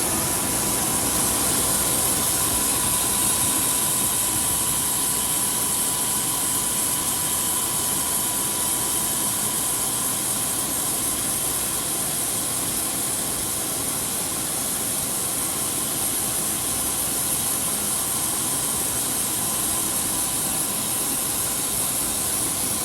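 A grinding machine's wheel grinding a shaft: a loud, steady high hiss, with a faint whine that fades out about halfway through.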